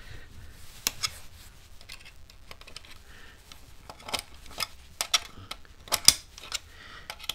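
Small right-angled spanner clicking and scraping against a steel backbox and a metal repair clip as the clip is tightened, in a run of irregular sharp metallic clicks. The clip keeps spinning rather than gripping as it is turned.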